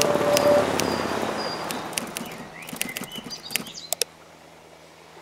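Birds chirping in short high notes and curving whistles over a wash of noise that fades away, with the last note of the music dying out at the start. The wash drops out about four seconds in, leaving a faint low hum.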